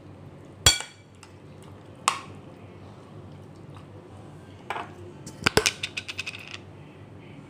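Metal spoon clinking against a ceramic bowl while stirring raw squid pieces in beaten egg: three separate clinks, then a quick run of clinks near the end.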